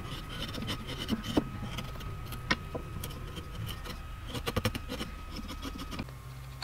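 Steel wood chisel paring thin shavings from a small wooden carving clamped in a vise: short scrapes and sharp clicks at irregular intervals, with a quick run of ticks about four and a half seconds in.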